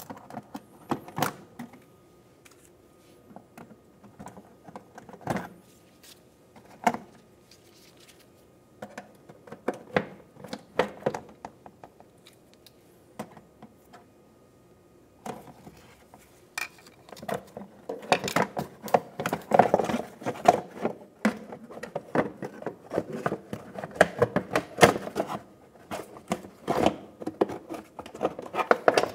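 Plastic push clips being pried out of a car's wheel-well splash shield with a small pry tool: scattered sharp clicks and snaps. In the last third comes a dense clatter of plastic rubbing and knocking as the shield is worked loose.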